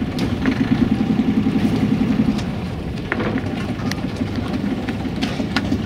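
A sailing yacht's inboard engine running at low revs while mooring, easing back about two and a half seconds in, with a few light knocks.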